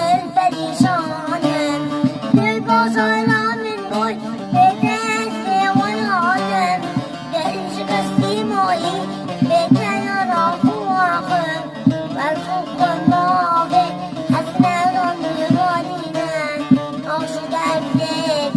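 Music: a song with a wavering, ornamented melody over a steady drum beat.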